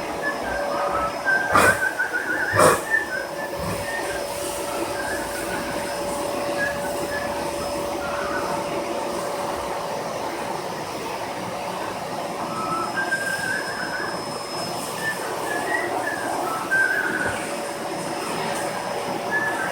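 Vacuum cleaner running steadily with a constant motor whine as it is used to groom a dog's coat, with two sharp knocks a second apart near the start.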